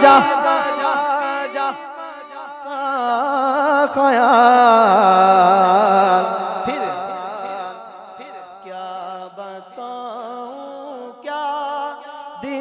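A man singing a naat through a microphone, drawing out long wavering notes with heavy vibrato rather than clear words. The voice is loudest at the start and again a few seconds in, then holds softer, steadier notes toward the end.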